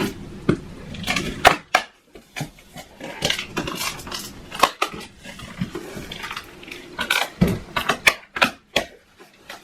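Irregular clattering, knocks and rustling of objects being handled, with many sharp separate clicks.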